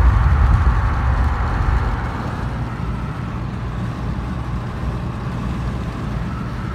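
Inside a pickup truck's cab at highway speed: steady engine, tyre and wind noise, with a heavy low rumble that is loudest for the first two seconds and then settles. The truck is shaking hard at this speed.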